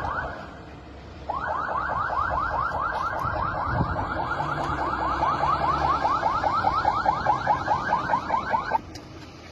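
An electronic siren or alarm sounding a fast series of rising whoops, about five a second. A short burst comes at the very start, and the run resumes about a second in and cuts off suddenly near the end.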